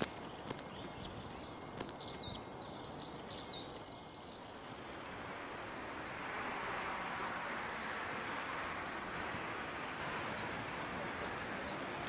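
Sparrows chirping in many short, quick calls for the first few seconds, then a steady hiss of city street noise takes over.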